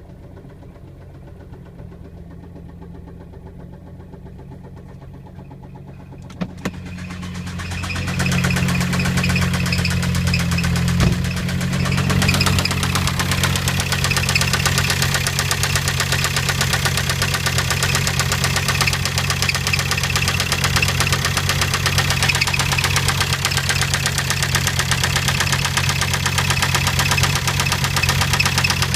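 Volkswagen Jetta TDI's 1.9-litre four-cylinder turbodiesel idling with a fast, even knocking, which the owner is trying to trace. It is faint at first; about six seconds in there is a sharp click, then the knocking grows louder over a couple of seconds and stays steady.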